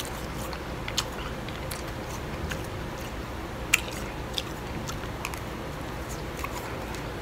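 A person chewing a mouthful of finely blended ice, with irregular sharp crunches and crackles; one crunch a little past halfway is louder than the rest.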